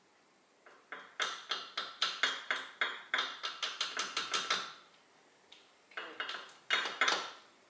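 Light metal-on-metal taps with a short ring, about four a second in a run of a dozen or more, then a few more near the end: the metal locking pin being tapped into place at the drive shaft nut in the wheel hub.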